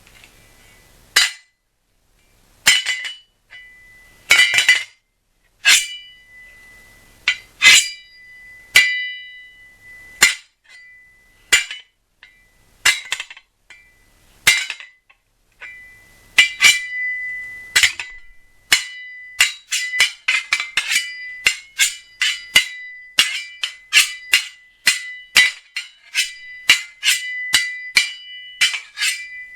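Steel kitchen-knife blades struck together as sword-clash sound effects: sharp metallic clinks, each ringing on with a high tone. Single strikes come a second or two apart at first, then from about 16 seconds in a quick flurry of several clashes a second.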